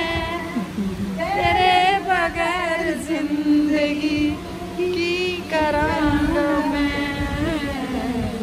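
A woman singing a song in long held notes that waver and bend in pitch.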